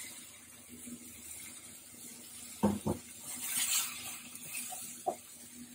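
Green beans tipped and scraped from a bowl into a hot frying pan of onions and tomatoes, over a faint sizzle. Two sharp knocks of the spatula come a little over halfway, then a rustling hiss as the beans are stirred, and a small tap near the end.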